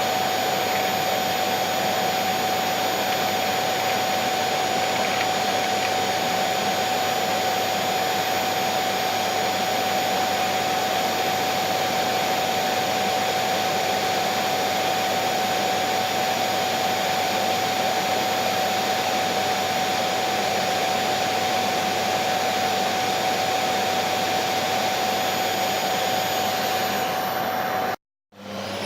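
Vacuum cleaner running steadily, a rushing noise with a constant whine from the motor. Near the end it cuts out for a moment and starts again, the whine rising as the motor spins back up.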